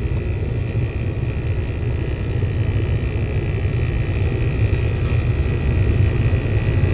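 Rheem RPKB-036 heat pump outdoor unit running in heating, compressor and condenser fan giving a steady low hum. It keeps running without switching into defrost while the defrost test pins are shorted, which the technician puts down to a bad defrost board or defrost thermostat.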